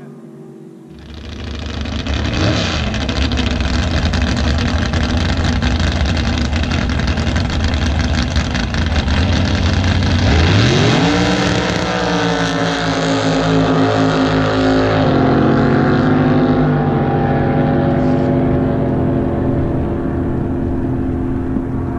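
Racing boat engines running at high power. They come in about a second in, rise sharply in pitch about ten seconds in as the boats accelerate, then hold a steady, higher note.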